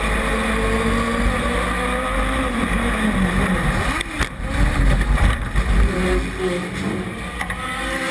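Onboard sound of a small oval-track race car's engine running hard at racing speed under a steady low rumble. Around the middle the engine pitch dips and rises again, and there are a few sharp knocks about four to five seconds in as a car ahead crashes.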